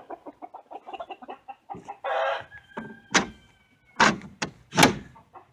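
A flock of backyard chickens clucking, starting with a quick patter of short clucks. Several loud, sharp, short sounds follow in the second half.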